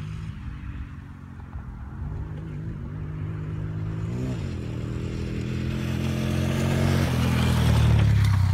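ATV engines running, one revving up and back down briefly about four seconds in. The engine sound grows louder toward the end as an ATV comes closer.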